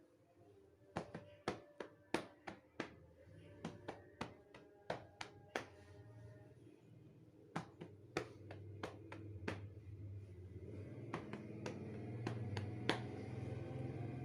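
Cupped-hand percussion on a patient's back in chest physiotherapy, done to loosen phlegm that will not come up: a run of sharp pats, about two a second for several seconds, then fewer and more spaced. A low hum grows louder in the second half.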